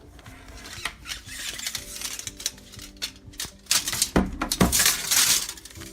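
Handling noise from a power adapter cable being laid out and measured: irregular rustling with light clinks and clicks, growing louder about four seconds in with two dull knocks.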